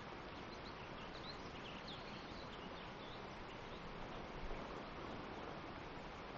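Steady outdoor hiss of wind and rustling, with a few faint, high bird chirps in the first half.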